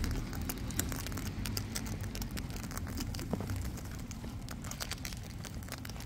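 Sulphur-crested cockatoos feeding right at the microphone: a dense, irregular crackle of small clicks and crunches from beaks working food and claws and feathers shifting close by, over a low rumble.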